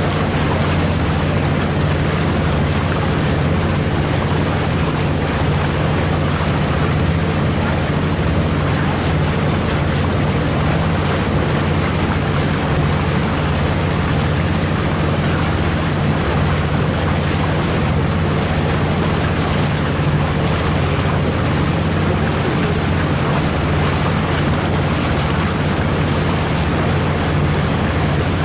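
A boat's engine running steadily under way, a constant low hum with an even rush of water and wind over it.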